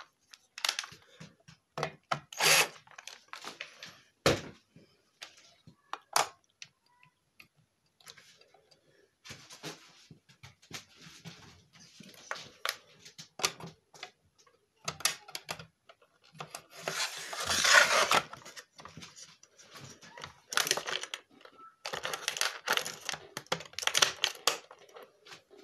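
Irregular clicks, knocks and scrapes of hard metal and plastic parts being handled: a silverfish-type e-bike battery case being lifted and slid onto its aluminium mounting plate, with a longer scraping slide about two-thirds of the way through and more clatter as it seats.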